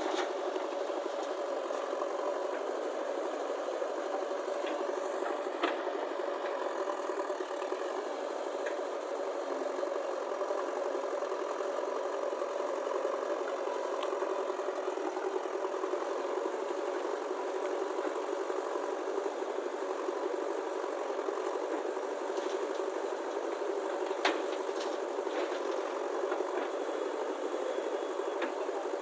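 An engine running steadily with a rattle throughout, and a few sharp clicks or clanks, the clearest about a quarter of the way in and near the end.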